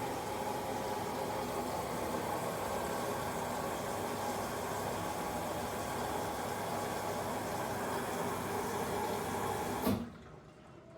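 Elin washing machine running with a steady, water-like rushing noise that stops with a click near the end.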